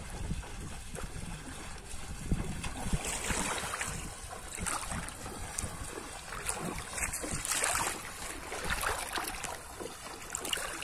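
Feet splashing through shallow river water as a person wades along, an uneven run of splashes.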